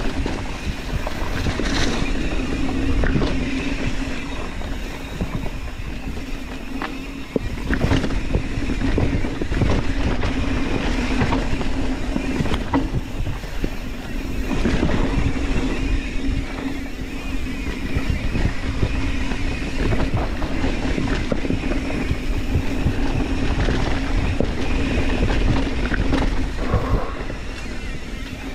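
Mountain bike riding fast down a dirt singletrack: tyre noise on dirt and leaves, wind on the microphone, and repeated knocks and rattles as the bike hits bumps. A steady hum runs underneath and breaks off a few times.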